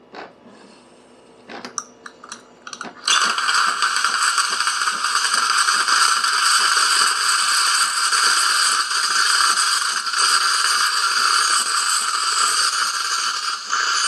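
Steam wand of a De'Longhi La Specialista espresso machine being opened: a few clicks as the steam dial is turned, then about three seconds in a loud steady hiss of steam that keeps going. This is the last priming step, purging the steam circuit.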